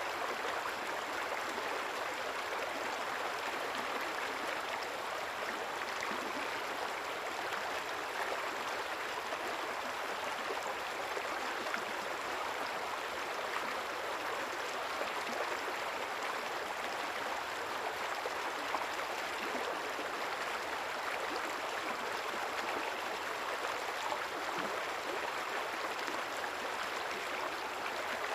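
A river's water running steadily with a continuous rushing and babbling, without pause or change.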